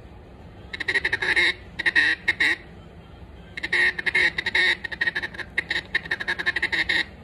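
Duck call with a Bois d'Arc (Osage orange) insert being test-blown while the insert is tuned. It gives three runs of rapid, short, clipped quacking notes: a short run about a second in, another at about two seconds, and a longer run through the second half.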